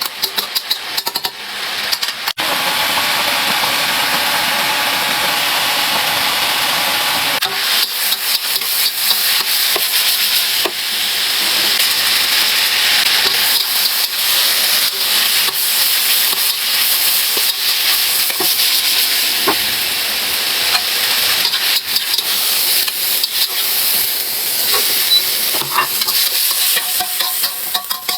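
Food sizzling in hot oil in a pan while it is stir-fried, with the clicks and scrapes of stirring. The sizzle starts suddenly about two seconds in.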